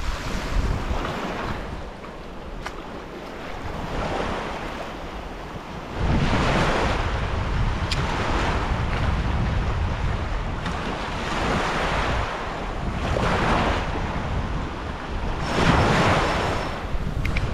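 Sea waves washing onto the shore in repeated surges, with wind rumbling on the microphone.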